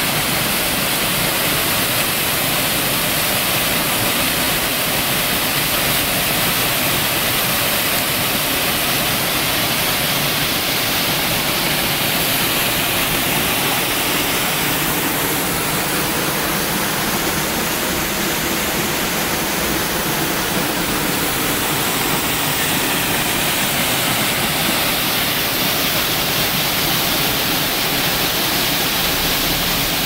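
Waterfall on a forest stream pouring over rock into a pool: a steady rush of falling water, its hiss thinning slightly for a few seconds midway.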